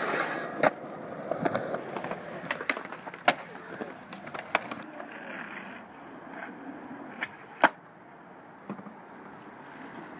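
Skateboard wheels rolling on pavement, with sharp clacks from the board, two of them loud: one near the start and one about three quarters of the way through.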